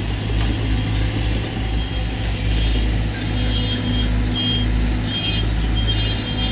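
Volvo EC210D excavator's diesel engine running steadily under load while the bucket digs into dirt. A hydraulic whine rises in the middle, and short high squeals come through in the second half.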